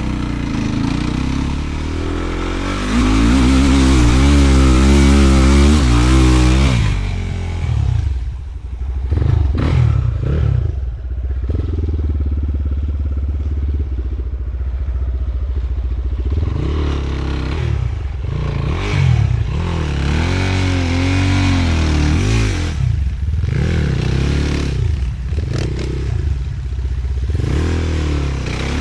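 Enduro motorcycle engine revving up and down repeatedly, pulling hardest a few seconds in, with clattering and scraping.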